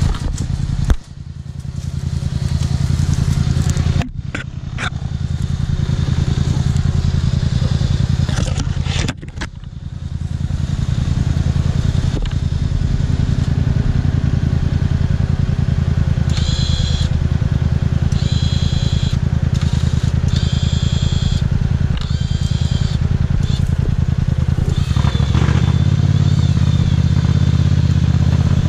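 ATV (quad bike) engine running at working revs, dropping off sharply three times in the first ten seconds and building back up. A high whine comes and goes several times past the middle.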